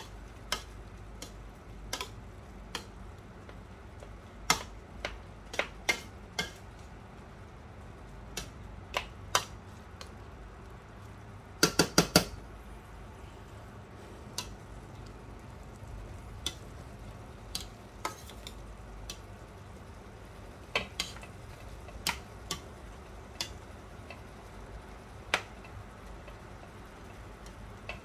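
Metal spoon stirring thick apple pie filling in a stainless steel pan, with irregular clinks of the spoon against the pan. A quick run of four clinks about twelve seconds in is the loudest.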